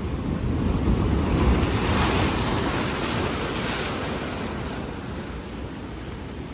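Ocean wave surging into a narrow rock inlet and churning over the rocks as white foam: a rush of surf that swells about a second in and slowly dies away.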